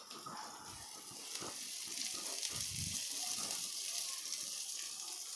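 Chopped onion, garlic and green chilli sizzling in hot oil in a nonstick kadai, being sautéed and stirred with a silicone spatula. The steady sizzle grows a little louder about two seconds in.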